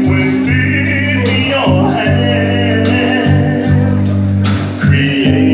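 Live music: male vocal group singing into microphones over backing music with a steady bass line and beat, heard through the stage PA.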